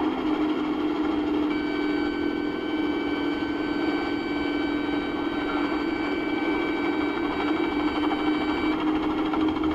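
Robinson R44 Raven I helicopter's steady engine and rotor drone in the cabin, with the low rotor RPM warning horn sounding one steady high tone from about a second and a half in until near the end. The horn means rotor RPM has dropped below limits as the helicopter loses translational lift on its approach to land.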